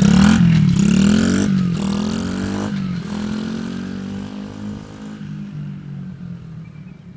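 Coolster 70cc dirt bike's small four-stroke single-cylinder engine revving and upshifting through its semi-automatic gearbox. The pitch climbs, then drops sharply about a second and a half in, climbs again and drops a second time about three seconds in. After that the engine note fades steadily.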